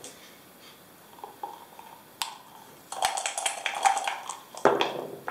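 Backgammon dice shaken, a quick run of clicks about three seconds in, then thrown onto the board, clattering near the end. One sharp click comes a little earlier.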